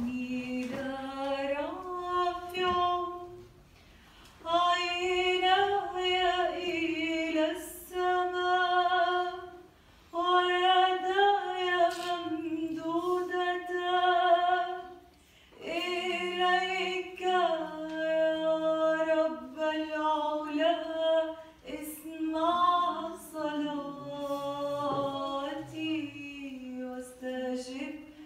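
Unaccompanied singing by high voices, a hymn sung in long held phrases with short breaks between them.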